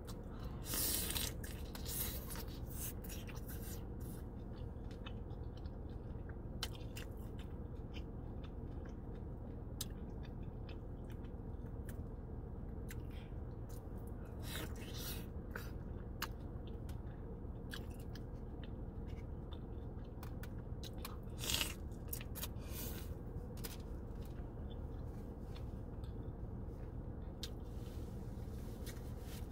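A person chewing and biting into birria tacos dipped in consommé, with scattered short crunches and crackles over a steady low hum. There are louder bursts about a second in and again about two-thirds of the way through.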